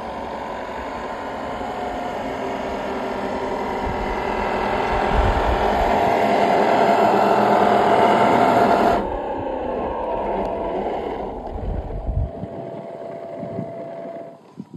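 A 3D-printed 1/8-scale RC Land Rover Discovery 5 model driving through snow, its motor and drivetrain whirring and growing louder as it comes close. About nine seconds in the sound drops abruptly to a quieter, steady whirr.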